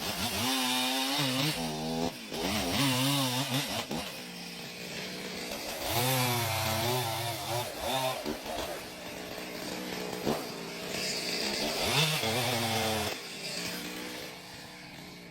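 Chainsaw cutting wood: the engine revs up in several bursts, its pitch wavering under load, and drops back toward a lower, steadier note in between.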